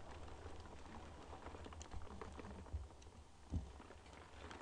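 Raindrops tapping irregularly on a window pane, a scatter of small ticks over a low steady rumble, with one dull thump about three and a half seconds in.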